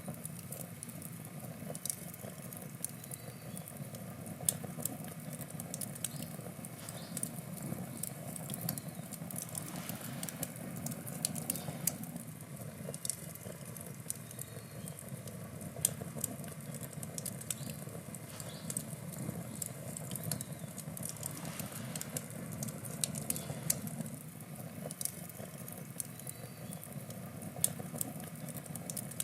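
Wood campfire burning, with frequent irregular sharp crackles and pops over a steady low rush of the flames.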